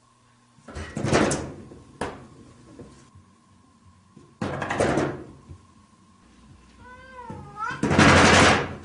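A cat meows once, a short call that wavers up and down in pitch, about seven seconds in. Around it are loud knocking, scuffling noises: one about a second in, a sharp click at two seconds, another at about four and a half seconds, and the loudest right after the meow.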